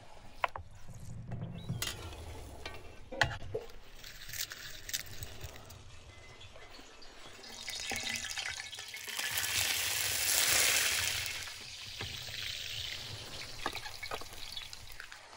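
Dried red chillies and garlic cloves sizzling in a hot pan. The frying hiss swells loud from about eight seconds in and dies down by about twelve seconds. A few sharp knocks and clinks of utensils come earlier.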